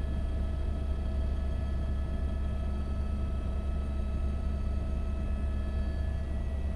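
Helicopter cabin noise in flight: a steady low rotor and engine drone with a constant high turbine whine above it.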